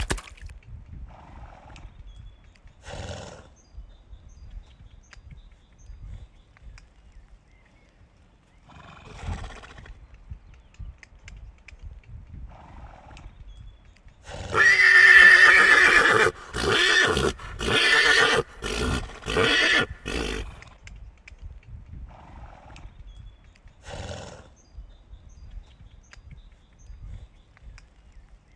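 Horse whinnying loudly about halfway through: a long high neigh that breaks into a run of shorter pulses. A few short, fainter horse sounds come before and after it.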